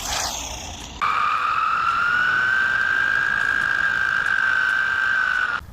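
Wltoys 124019 RC buggy's brushed electric motor whining at a steady high pitch at speed, starting and stopping abruptly. Before it, a brief rushing sound as the buggy goes by.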